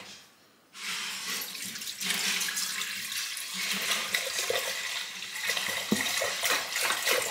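Mulled red wine poured in a steady stream into a cooking pot, the pour starting under a second in.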